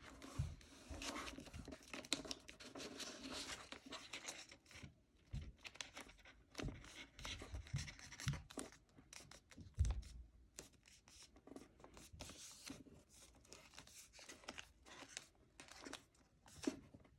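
Sheet of printer paper being handled, folded and creased by hand: faint rustling and crinkling with short clicks and a few soft knocks, the loudest about ten seconds in.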